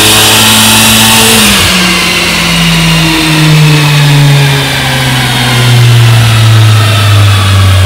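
Honda Civic Type R's turbocharged four-cylinder running loud at high revs through a Magnaflow cat-back exhaust on a chassis dyno. About one and a half seconds in, the throttle closes and the revs fall slowly and steadily as the car winds down on the rollers at the end of a pull.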